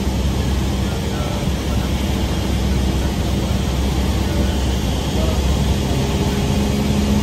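Cessna 172S Skyhawk SP's four-cylinder Lycoming engine and propeller running steadily in flight, heard inside the cabin as an even, unbroken drone with a low hum and rushing noise.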